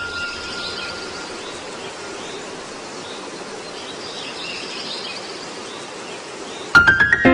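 Steady outdoor ambience hiss with faint bird chirps. Near the end, a quick run of rising piano notes starts the music.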